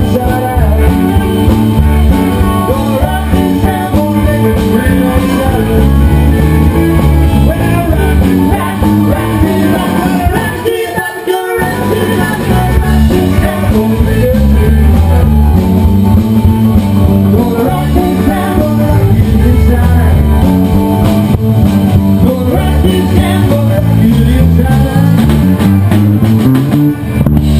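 Live rockabilly band playing loudly: electric guitar, bass and drums with vocals. About ten seconds in the bass and drums drop out for a moment, then the full band comes back in.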